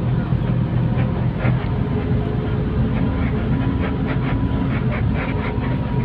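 Steady low engine drone with a thin, even high tone above it, and faint voices in the background.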